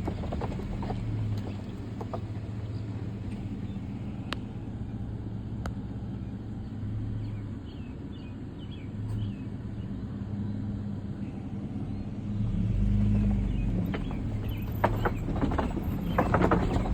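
Car driving along, with a steady low engine hum and road rumble. Near the end comes a run of sharp knocks and rattles.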